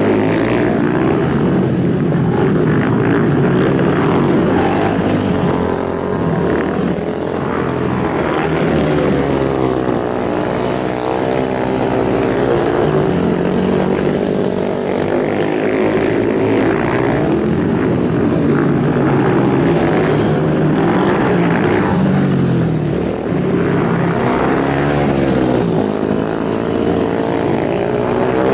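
Several racing motorcycle engines running hard together, their pitch rising and falling as they rev up and down with no break.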